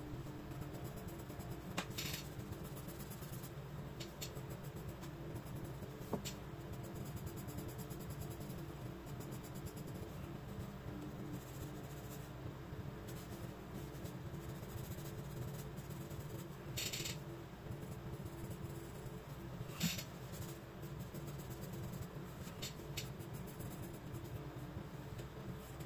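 Graphite pencil scratching across sketchbook paper in short hatching strokes, with a few louder strokes about 2 s, 17 s and 20 s in. A steady low hum runs underneath.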